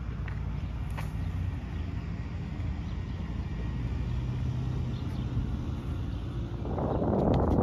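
Wind rumbling on the microphone on a gusty day, with a few faint crackles. Near the end a louder rush of noise comes in, with the first hoof steps on dirt.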